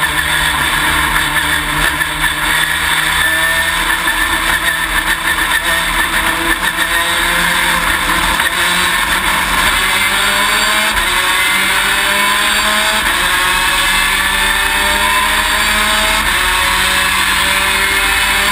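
Race car's V6 engine running, heard from inside the stripped cockpit. It runs unevenly at first, then steadier, with its pitch rising slowly through the second half.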